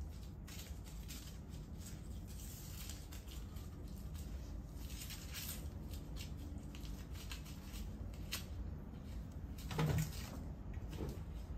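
Crumpled A4 paper balls crackling and rustling as a toy poodle noses and mouths through them, searching for hidden treats. A brief louder sound comes about ten seconds in.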